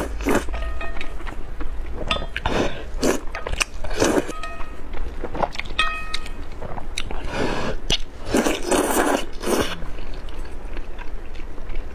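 Slurping and chewing of hot and sour glass noodles in soup, with several long slurps in the second half. A few short clinks of metal chopsticks against a brass bowl ring briefly.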